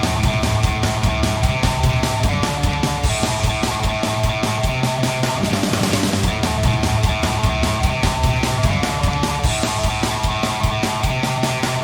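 Fast rock music with distorted electric guitar and a driving drum beat.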